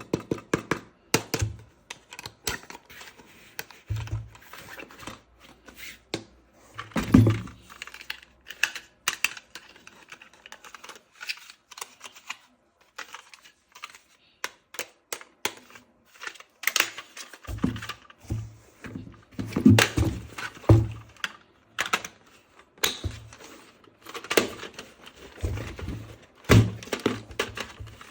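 Toy gun parts and packaging being handled: irregular clicks and taps of hard plastic, with bursts of dull thunks as pieces are set down or fitted together.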